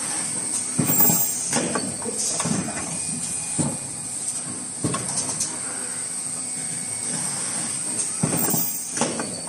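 Automatic N95 cup mask machine running: a steady high-pitched hiss under irregular mechanical knocks and clunks from its moving stations, the loudest about a second in.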